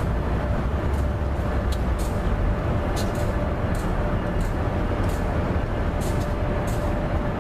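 CSX double-stack intermodal freight train's well cars rolling past on an elevated steel bridge: a steady rumble with scattered sharp clicks and a faint steady tone.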